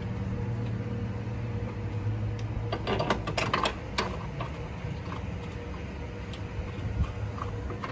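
Steady low mechanical hum, with a short run of metallic clicks and clinks about three to four seconds in from hand tools working on the engine mount bolts.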